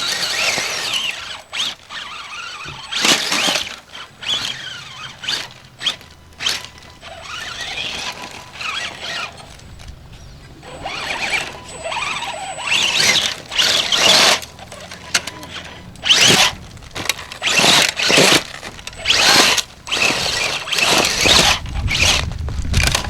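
Radio-controlled scale off-road car's motor and gears whining in repeated short bursts of throttle, the pitch wavering up and down.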